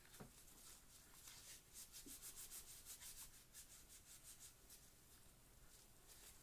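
Near silence, with a run of faint, rapid rubbing strokes through the middle few seconds.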